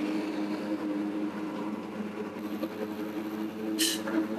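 A motor vehicle's engine runs with a steady hum under road and wind noise. A short hiss comes near the end.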